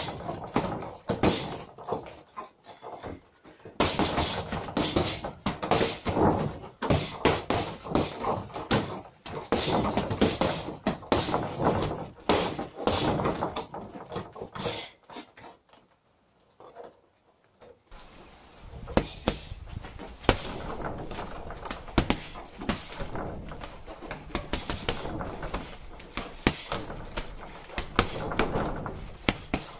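Boxing gloves striking a hanging heavy punching bag in irregular flurries of hard thuds. The punching stops for a moment of near silence about sixteen seconds in, then starts again.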